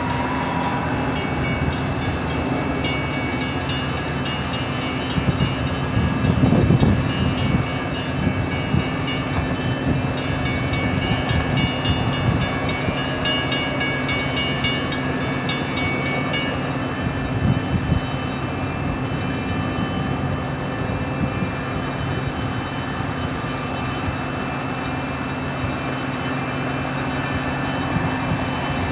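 Commuter train approaching and passing, cab car leading, with its running gear rumbling and wheels knocking over the rails; a few louder knocks come about six and seventeen seconds in. Grade-crossing bells ring rapidly through the middle of the pass.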